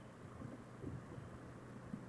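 Faint, muffled motorcycle riding noise picked up by a helmet intercom microphone: a low steady engine drone under a soft hiss, with a few faint knocks.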